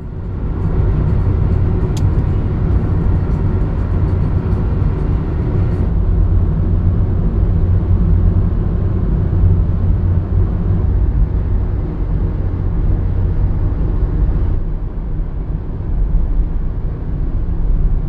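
Steady, loud low rumble of road and engine noise inside the cabin of a moving Honda Fit. Its tone shifts slightly about six seconds in and again near the end.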